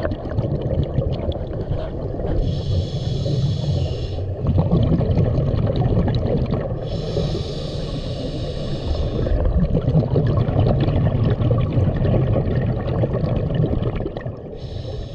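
Scuba diver breathing through a regulator underwater: a hissing inhale three times, about four to five seconds apart, with low rumbling, gurgling exhaust bubbles in between.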